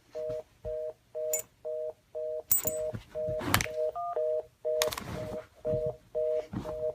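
A telephone fast-busy (reorder) tone: two notes sounding together, beeping about twice a second without a break. Several sharp knocks or thumps come through it, the loudest about two and a half and three and a half seconds in, and again near five seconds.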